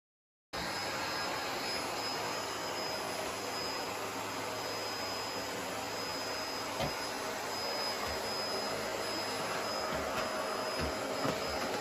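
Vacuum cleaner running steadily with a thin high motor whine; it switches on abruptly about half a second in, with a few light knocks later.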